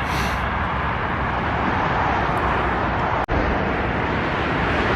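Steady roar of motorway traffic on the M275, with a very brief dropout about three seconds in.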